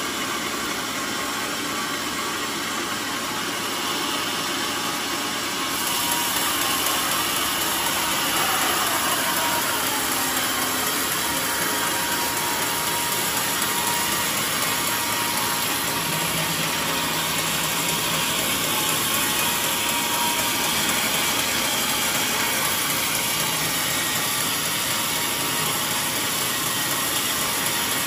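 Band sawmill sawing through a mahogany log, a steady whining, rushing machine noise of the blade running in the cut, which gets louder about six seconds in.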